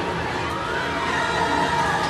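Ghost train ride soundtrack: music playing loudly with a rising tone about half a second in, over the noise of a crowd.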